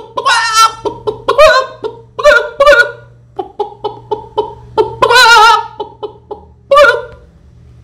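Hen-like clucking and squawking calls, a string of short pitched bursts with two longer wavering squawks, one near the start and one about five seconds in.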